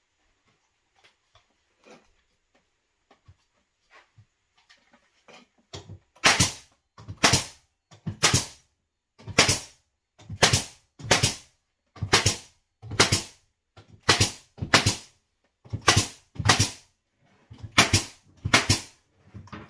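Pneumatic nail gun firing about fourteen sharp shots, singly and in quick pairs about a second apart, nailing 1-by-4 face trim to a window frame. Faint taps and clicks of the board being set in place come first.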